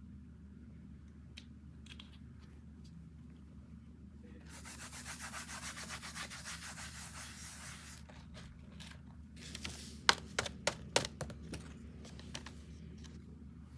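A steady rubbing noise, like something being sanded or scraped, for about three seconds, then a quick run of sharp taps, the first the loudest.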